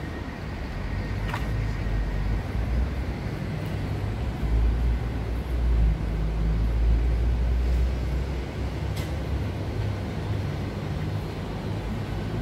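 Low rumble of a vehicle engine running nearby, swelling about four seconds in and easing off again after eight, with a couple of faint clicks.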